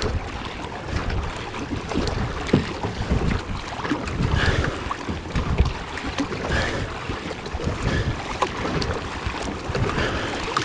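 Kayak being driven hard through open water, with repeated splashing of water against the boat and the paddle or blades, and wind buffeting the microphone.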